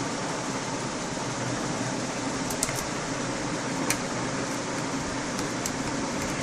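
Steady room hiss and hum with a few faint, light clicks from about two and a half seconds in, from a small screwdriver taking out the screws that hold a laptop's LCD panel.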